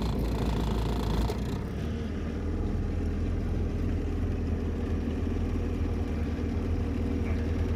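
Boat motor running steadily with a low hum; a higher hiss drops away about one and a half seconds in.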